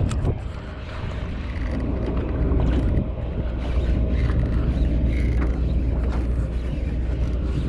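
Wind rumbling on the microphone over choppy water, a steady low noise, with one sharp knock at the start.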